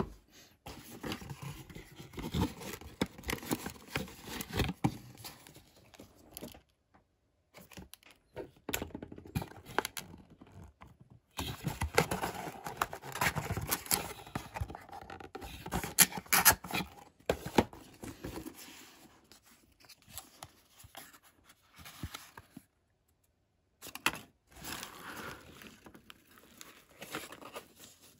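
Handling noise from a fabric drone shoulder bag being turned over and opened by hand: irregular rustling and scraping with small clicks and knocks, in bursts broken by a few short silent pauses.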